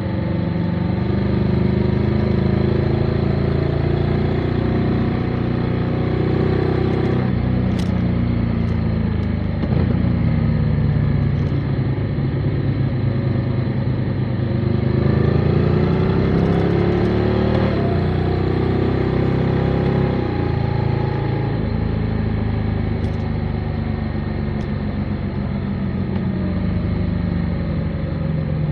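Motorcycle engine running under way, its note rising and falling with throttle and gear changes: a sudden drop about a quarter of the way in, a long steady climb in the middle, then falling off again.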